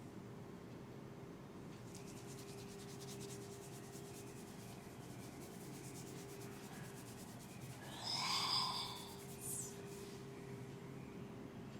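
Hands rubbing and massaging a person's head, a faint steady rubbing over skin and hair. About eight seconds in there is one brief, louder pitched sound.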